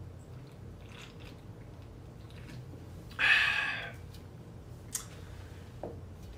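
A man swallowing soda from a can, then a loud breathy exhale about three seconds in as he lowers it. A sharp click and a light knock follow near the end as the can is set down on the table.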